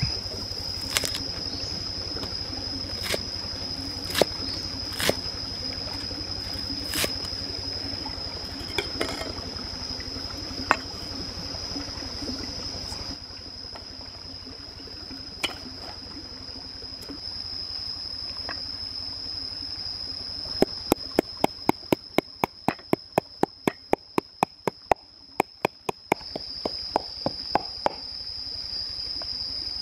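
Food being prepared by hand: scattered clicks and knocks of vegetables and utensils on a clay plate, over a steady trickle of water and a steady high whine. About two-thirds through comes a quick, even run of some twenty sharp knocks, about four a second.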